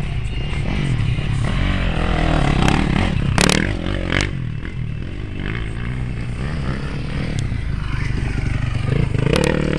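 Dirt bike engines revving up and down as the bikes ride past on a dirt track, one passing close near the end. A sharp crack cuts in about three and a half seconds in.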